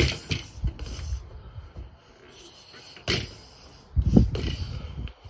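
Fists hitting a free-standing spring-mounted reflex bag: a quick cluster of thumps at the start, then another about three seconds in and the loudest about four seconds in.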